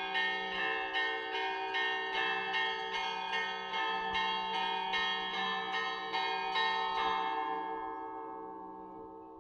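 Russian Orthodox monastery bells ringing an evening peal: smaller bells struck quickly, two or three strokes a second, over the sustained ring of larger bells. About seven seconds in the strokes stop and the bells ring on, fading away as the peal ends.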